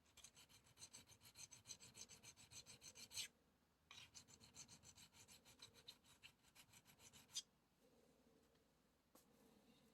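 Fine diamond file rubbing in quick short strokes on the copper of a GPU waterblock, deburring a screw hole: two runs of about three seconds each with a short pause between, each ending on a sharper stroke.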